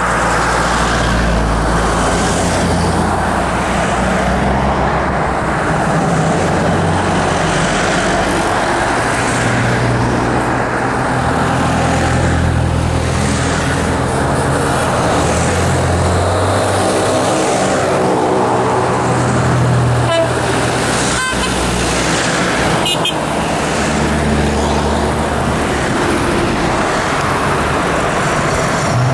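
Road traffic from a convoy of off-road SUVs driving past on a paved road: engines and tyres, with car horns tooting.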